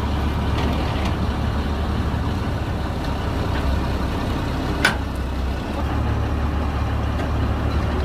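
Combine harvester's engine running steadily with a low hum. A single sharp click comes about five seconds in.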